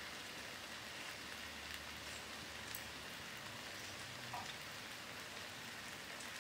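Fried flat rice noodles with oysters and egg sizzling softly in a non-stick pan, a steady quiet hiss with a couple of faint ticks.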